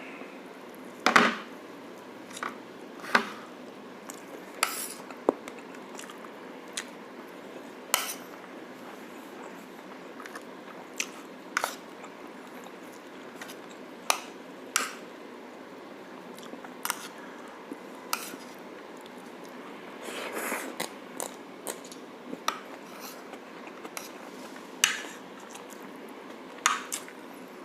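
Cutlery clinking against a plate at irregular intervals, a second or two apart, with chewing in between, as a meal of braised pork shank is eaten.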